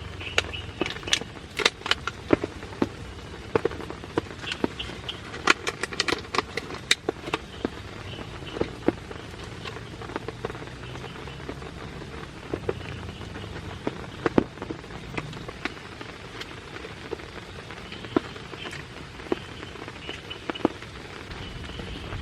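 Rain falling, with large drops striking a surface close by in sharp ticks over a steady hiss of rain. The drops come thickly for about the first seven seconds, then more sparsely.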